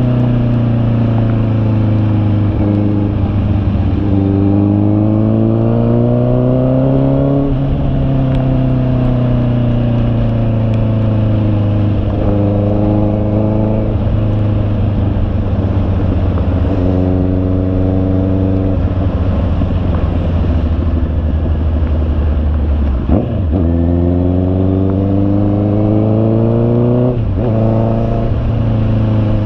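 Honda CB650R inline-four engine running under load, its pitch climbing over several seconds and dropping sharply before climbing again, as at gear changes, with a steadier stretch in the middle.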